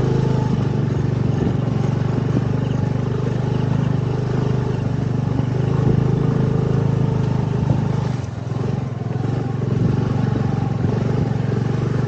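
A small two-wheeler engine running steadily at low speed while riding a muddy dirt track. It eases off briefly about eight seconds in, then picks up again.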